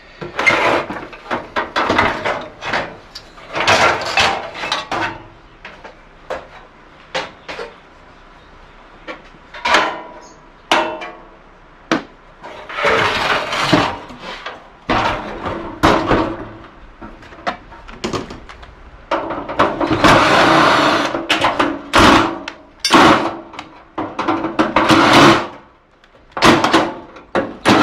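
Irregular knocks, clanks and scraping of tools and sheet-metal parts as a gas wall heater is taken apart, with a couple of longer noisy stretches of a few seconds near the middle and toward the end.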